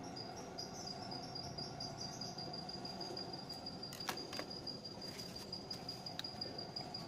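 A high, thin insect trill, in short quick pulses for the first two seconds and then held as one steady note, over a low steady background noise. A light clack about four seconds in and another about six seconds in, as chopsticks are laid on the steel counter.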